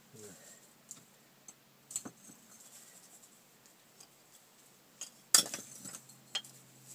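Knife and chunks of ice being handled: a few scattered sharp clinks and knocks, with a louder clatter of hard knocks about five seconds in.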